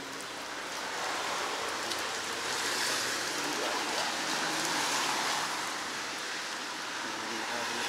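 Rain falling: a steady, even hiss that swells slightly in the middle.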